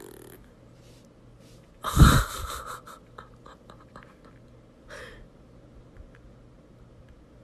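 A dog lying on a bed breaks wind loudly about two seconds in: one sudden deep burst that trails off over about a second, the sign of an upset stomach. A smaller, fainter sound follows about five seconds in.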